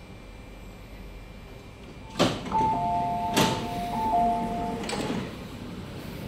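Door-closing warning of a Metro-Cammell MTR Mid-Life Refurbished train: alternating two-note electronic beeps for about two seconds, starting about two seconds in, with sharp knocks around them and the doors shutting with a knock near the end.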